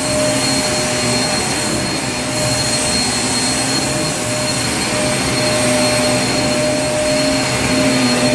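Vacuum cleaner running steadily: a constant rush of air with a steady high whine over a lower hum.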